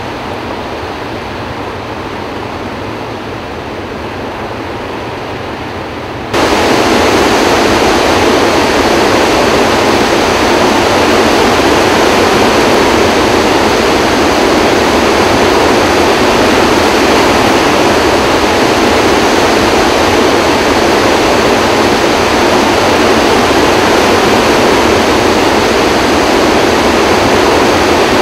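Water rushing out through the open spillway gates of Kaw Dam in a flood release, a steady loud noise with no pitch. About six seconds in it jumps suddenly louder and brighter, then holds steady.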